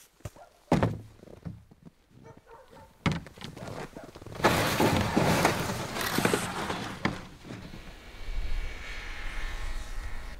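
Two dull thuds, then footsteps crunching in snow and a plastic sled scraping over it, followed by a low wind rumble on the microphone near the end.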